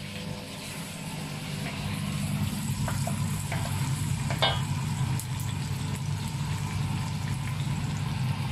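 Diced onion frying in oil in a metal pan, sizzling faintly while a wooden spoon stirs it, with a few light knocks of the spoon against the pan about three to four and a half seconds in. A steady low hum runs underneath.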